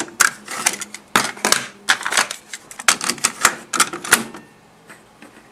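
Denon DRM-650S cassette deck's cassette door opened with the eject button and the cassette handled in its compartment: a run of sharp plastic clicks and clatters that stops a little over four seconds in.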